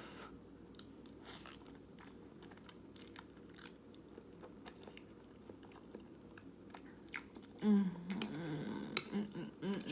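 Faint close-up chewing of jjajangmyeon ramen noodles, with small wet mouth clicks, then a few brief vocal sounds from the eater in the last couple of seconds.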